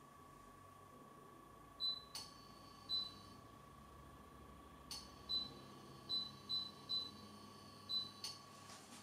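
A string of about seven short, high electronic beeps in an uneven rhythm, with three sharp clicks among them, over a faint steady whine that stops near the end.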